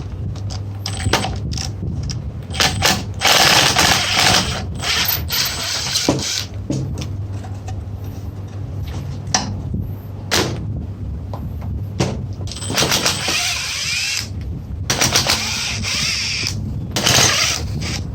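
Irregular metallic clicks, knocks and rattling of tools working on metal winch parts, with longer stretches of ratchety mechanical rattle and a steady low hum underneath.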